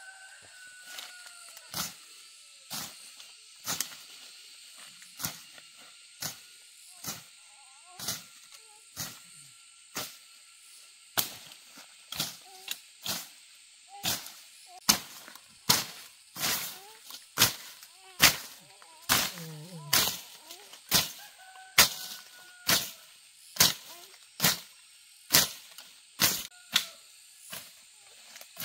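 A long series of sharp strikes, about one a second, growing a little faster and louder about halfway through, over a faint steady high insect-like hum.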